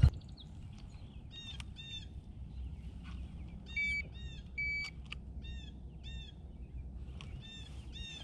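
A small bird calling again and again with short downward chirps, mostly in pairs. About four seconds in come two short, steady electronic beeps from a handheld digital fish scale as it weighs a hanging bass.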